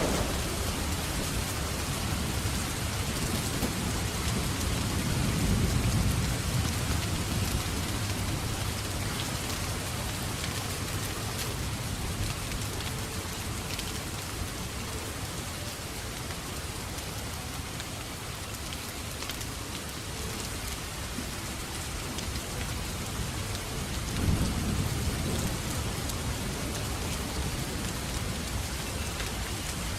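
Steady heavy rain falling, with a fireplace crackling under it. Thunder rolls low twice: once about five seconds in and again near the end.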